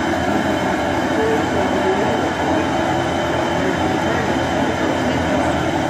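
Norfolk & Western 611, a class J steam locomotive, standing still with a loud, steady hiss and rumble.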